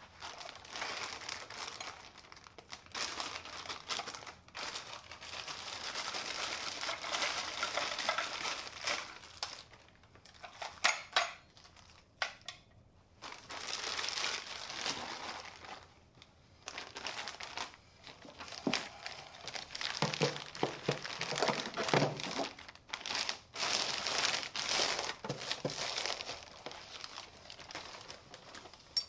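Packaging being handled during an unboxing, crinkling and rustling in irregular bouts with short pauses between them.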